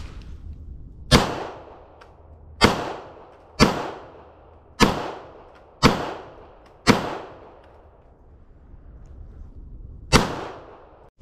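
Seven shots from a stainless .45 ACP 1911 pistol. Six come about a second apart, then there is a pause of about three seconds before the last one, and each shot dies away over about a second.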